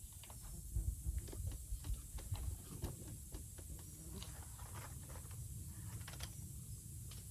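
Scattered small clicks and scrapes of hands working at the plastic oil filler cap on a Toro chainsaw, over a low rumble that swells about a second in.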